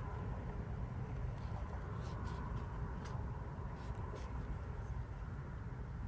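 Faint strokes of a Chinese painting brush on xuan paper: a few soft, brief brushing sounds over a steady low hum.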